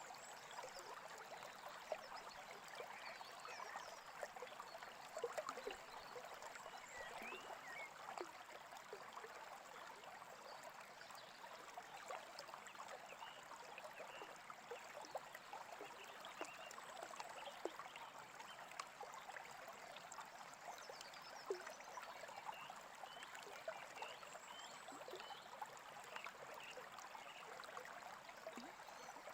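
A small brook running steadily with a soft trickling, and scattered short bird chirps above it.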